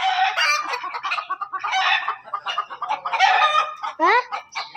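Backyard chickens clucking and squawking loudly, call after call with hardly a break, and a rising call about four seconds in.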